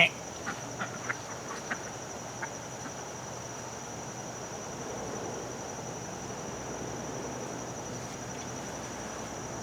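Insects chirring in a steady high-pitched drone, with a few light clicks in the first couple of seconds.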